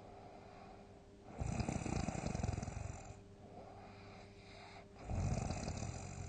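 A person in deep sleep snoring loudly: two big, rough snores, about a second in and again near the end, with quieter breathing between them.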